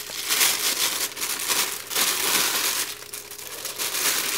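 Bubble wrap and a thin plastic bag crinkling and rustling in the hands as a wrapped lens is pulled out of them. The rustling comes in several loud spells with short lulls between.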